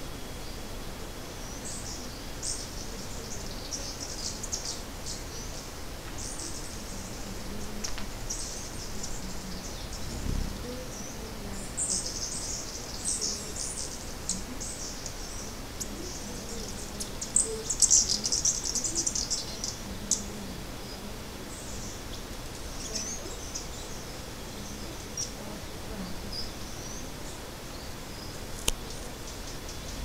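Small songbirds calling: high, thin chirps and twitters in scattered bursts, busiest and loudest about two-thirds of the way through, over a faint steady background hiss.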